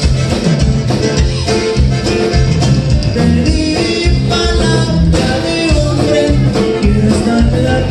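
Live conjunto band playing an upbeat tune through the PA: button accordion, bajo sexto, bass guitar and drums.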